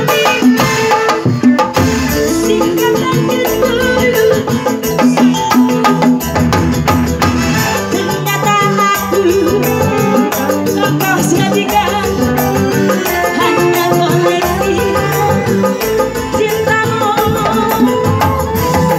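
Live amplified band music, likely dangdut or an orgen tunggal keyboard-and-percussion backing, with a woman singing into a handheld microphone over a steady rhythm.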